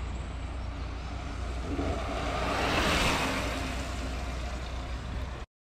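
Road-riding noise from a camera on a moving bicycle: wind rumbling on the microphone over a steady rush of tyres on tarmac. It swells to a louder rush about three seconds in and eases off, then cuts off suddenly near the end.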